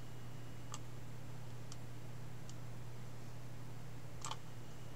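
A few faint computer mouse clicks, four in all, spaced irregularly over a steady low electrical hum.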